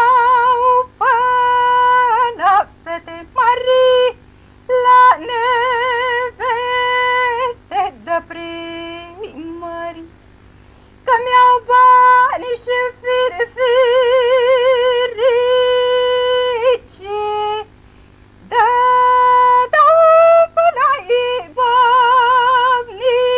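A woman singing a Romanian folk song solo in long, held notes with wide vibrato. The phrases are separated by short pauses, the longest about four seconds in, around ten seconds in, and around eighteen seconds in.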